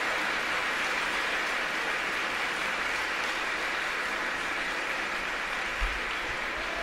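Audience applauding steadily in an ice arena, a dense even clapping at the end of a figure skating performance.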